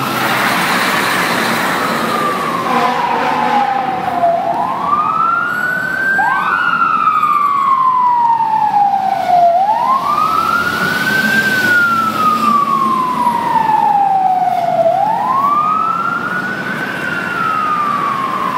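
Fire truck sirens wailing as the trucks pass: each cycle rises quickly, then falls slowly over about four seconds and repeats about every five seconds, with a second, fainter siren sounding out of step. Road and engine noise runs underneath.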